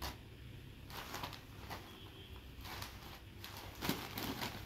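Soft rustling of a cotton saree being handled, folded and moved on a cloth-covered surface. The rustles come as a scatter of short scrapes and brushes, a little louder near the end.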